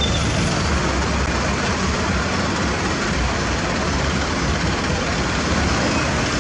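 Truck engines running: a steady, dense noise with a heavy low end and no horn or other distinct event.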